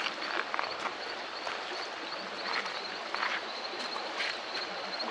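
Steady rush of a waterfall and stream, with a high chirp repeated in quick pulses throughout and a few short sharp clicks.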